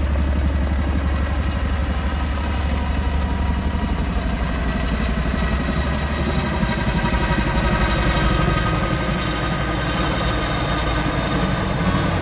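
An engine running steadily, with a strong low hum.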